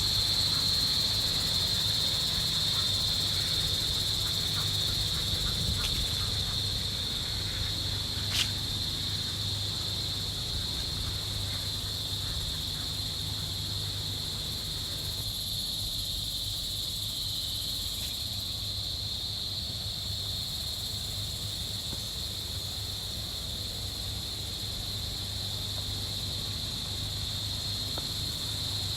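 Steady, shrill chorus of crickets or similar insects, with a low steady hum underneath and a single sharp click about eight seconds in.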